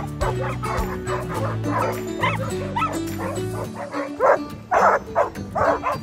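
Dogs barking and yipping in short repeated barks that get louder in the second half, over background music.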